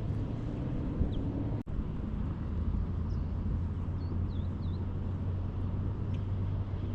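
Outdoor ambience: a steady low rumble with a hum, and a few short high bird chirps in the middle. The sound drops out briefly about a second and a half in.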